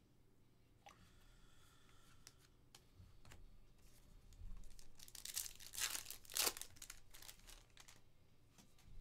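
A foil trading-card pack being torn open, with a burst of tearing and wrapper crinkling a little past the middle, after a few faint handling clicks.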